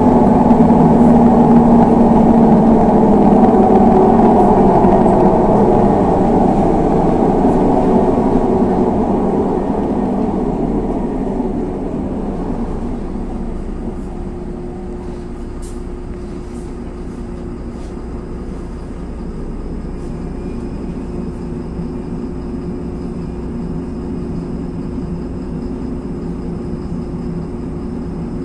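Interior sound of a LiAZ 6213.22 articulated city bus under way: its engine runs loud for the first several seconds, its pitch slowly falling, then fades to a quieter steady hum about halfway through as the bus eases off and slows.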